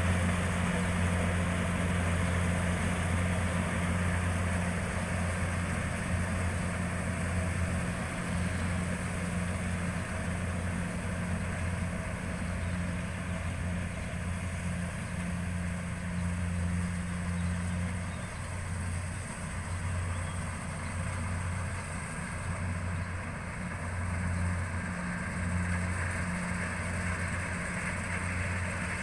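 Rice combine harvester's engine running steadily: a constant low drone with a wash of machinery noise over it.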